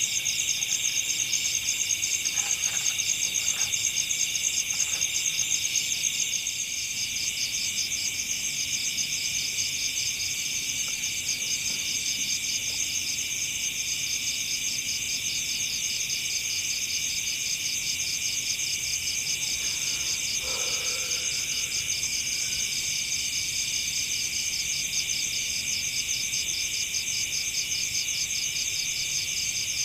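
Night chorus of crickets and other insects: a dense, high, fast-pulsing trill that holds steady. A brief faint call is heard about twenty seconds in.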